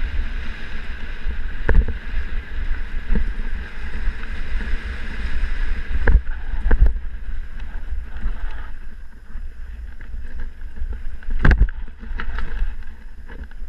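Wind buffeting the action-camera microphone on a mountain bike descending a dirt singletrack, with a steady rush of tyre and trail noise and about five sharp knocks as the bike hits bumps. The rush thins out over the last few seconds.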